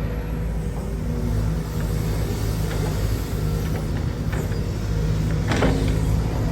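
Excavator engine running steadily, a low hum, with a few light clicks and one sharp knock or scrape about five and a half seconds in.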